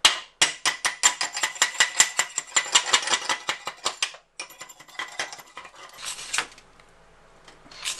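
Chipping hammer rapping slag off a fresh stick weld: quick ringing metal-on-metal taps, roughly seven a second, for about four seconds. Then fainter scraping strokes over the metal.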